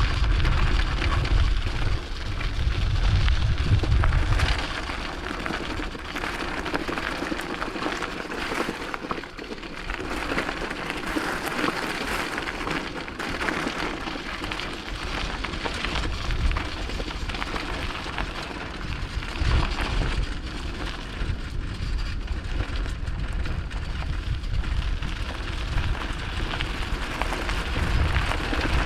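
Bicycle riding along a forest track: a steady crackle of tyres on the ground. Wind buffets the microphone for the first few seconds and again at the very end.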